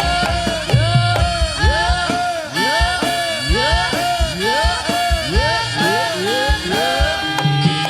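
Javanese jaranan ensemble playing loud accompaniment music: drum strokes and ringing gong-like tones under a melody that swoops up and down in pitch again and again.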